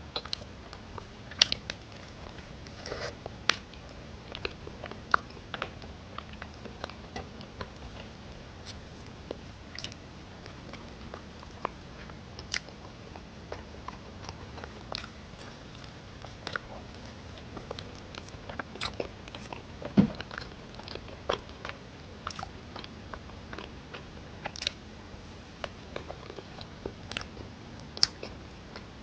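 Close-miked eating sounds: a person chewing and biting, with frequent irregular sharp mouth clicks and smacks.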